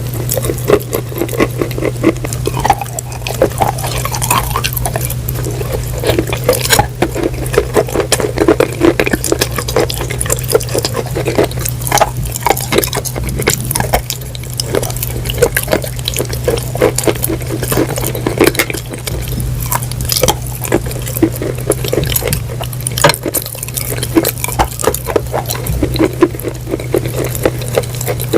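Close-miked crunching and chewing of something wet, a dense run of irregular crackles and clicks. A steady low hum runs underneath.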